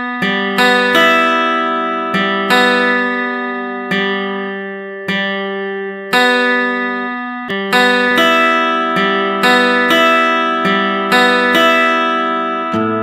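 Background music of slow plucked notes, each struck cleanly and left to ring out and fade before the next.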